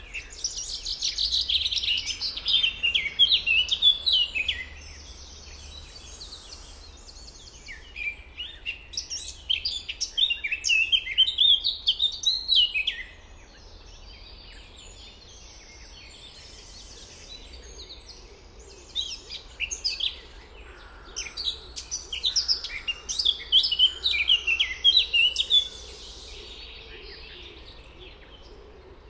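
A songbird singing three long bouts of rapid, varied, high-pitched notes, each lasting several seconds, with pauses of a few seconds between them.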